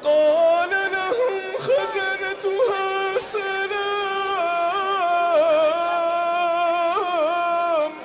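A man's voice reciting the Quran in a slow, melodic style, holding long ornamented notes that waver and turn in pitch.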